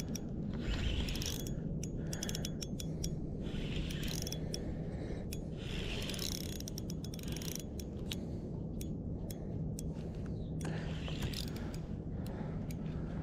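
Spinning reel being cranked against a hooked fish, its gears whirring with many sharp clicks, typical of a fish pulling hard on the line.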